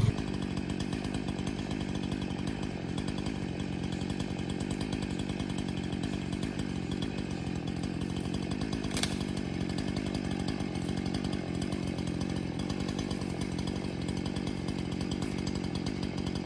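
Two-stroke chainsaw running steadily while bucking felled logs into lengths, with one sharp click about halfway through.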